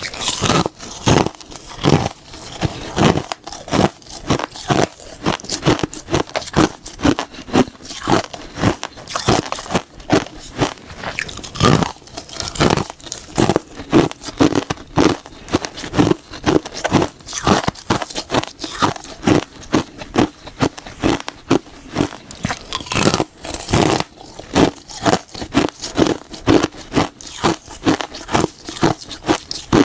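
Crunchy food being bitten and chewed close to the microphone, a steady run of crisp crunches about twice a second.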